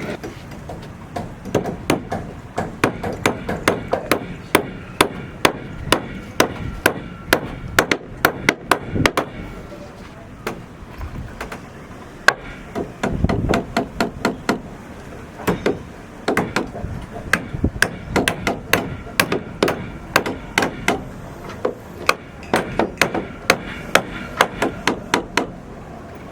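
Hammering: a steady run of sharp hammer blows, two or three a second, with a brief pause around the middle.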